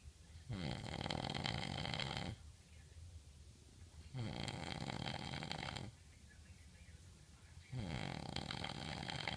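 A man snoring in his sleep: three long snores about three and a half seconds apart, each dropping in pitch as it begins, with quiet breaths between them.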